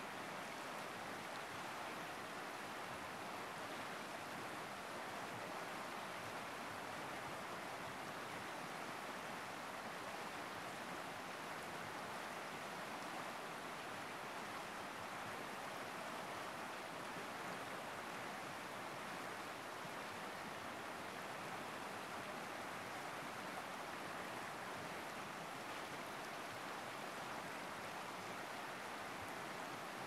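A wide river rushing over shallow rapids: a steady, even roar of moving water that doesn't change.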